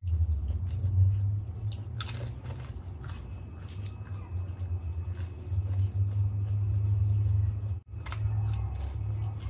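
Mouth sounds of eating dahi golgappa: the crisp fried puri shells crunching and cracking between the teeth, then wet chewing of the yogurt filling. A steady low hum runs underneath, and the sound cuts out for a moment near the end.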